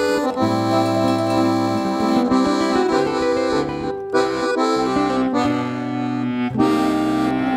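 Piano accordion (sanfona) playing an instrumental melody and chords over held bass notes, in forró style.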